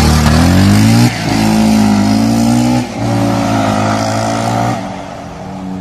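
A vehicle engine accelerating hard through the gears. Its pitch climbs and drops sharply at a gear change about a second in, climbs again and drops near three seconds, then holds steady before getting quieter near the end.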